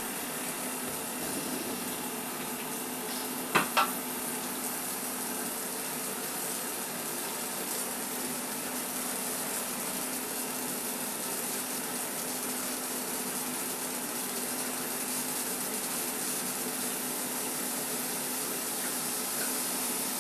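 EveryCook automated cooker's pressure pot heating up as pressure builds, its pressure-indicator valve rising: a steady hiss with a faint low hum beneath. Two short clicks come about three and a half seconds in.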